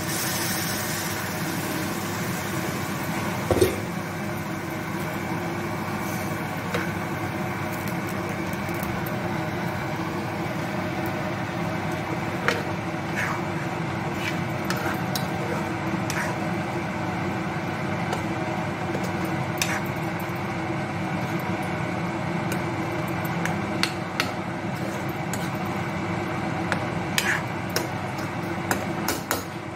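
Clicks and clinks of a metal spoon against an iron kadai as egg curry cooks in it, coming more often near the end, over a steady mechanical hum.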